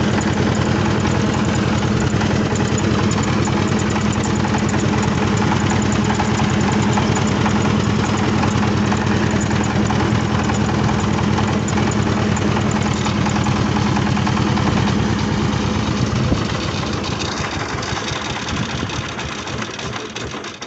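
Tobata micro tractor's single-cylinder diesel engine idling with a steady, even thudding beat, fading away over the last few seconds. The machine has been stopped over an odd noise, which the driver suspects is a stick caught in it.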